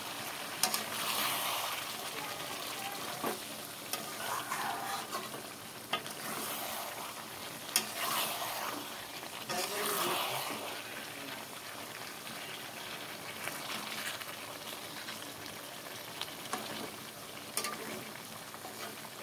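Chicken and potatoes sizzling in oil and spice masala in a metal kadai while being stirred with a metal spatula. The spatula scrapes and taps against the pan now and then. This is the dry sautéing (kosha) stage of a chicken curry.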